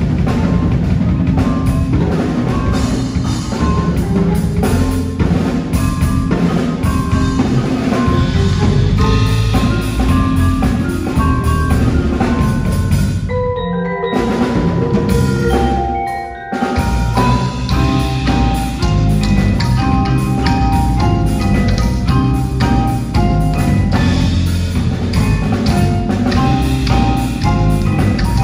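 Percussion ensemble playing: several marimbas and other mallet keyboards over drum kit and low drums. About halfway through, the drums drop out for a few seconds, leaving only a few ringing mallet notes, then the full ensemble comes back in.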